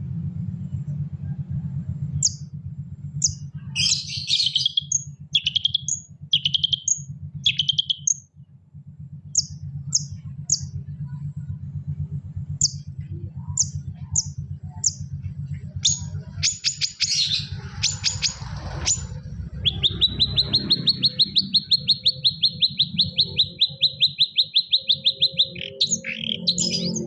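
Songbird calls: short sharp chirps in quick runs, then a long, fast, even trill about twenty seconds in, over a steady low hum. This is the kind of birdsong played to set a long-tailed shrike (cendet) singing.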